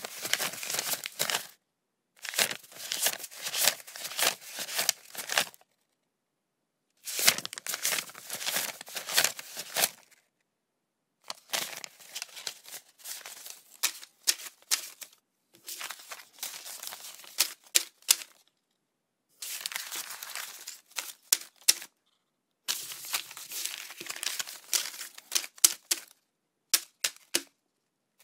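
Paper banknotes being counted by hand: rapid, crisp flicks of bills in runs of a few seconds each, about eight runs with short silent pauses between them.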